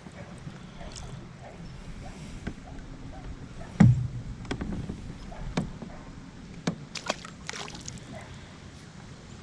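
Water sloshing against a kayak, with a series of sharp knocks on the boat. The loudest is a heavy thump about four seconds in, and a quick cluster of knocks follows near seven seconds.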